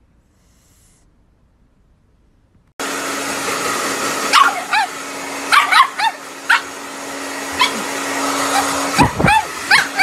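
Near silence, then about three seconds in a hair dryer starts running with a steady hum, and a pug barks and yips over it again and again in short sharp calls, set off by being blow-dried after a bath.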